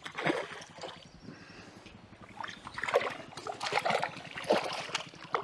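A hooked trout splashing at the water's surface as it is brought to the bank toward a landing net, in several irregular splashes.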